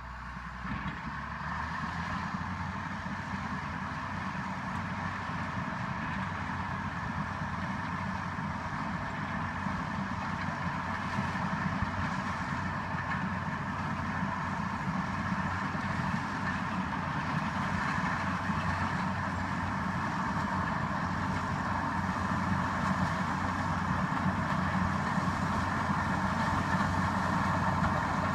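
Cat D6H LGP bulldozer's six-cylinder diesel engine running, growing steadily louder as the machine approaches.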